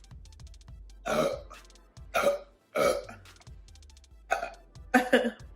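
A girl giving several short, loud burps one after another, about five in all.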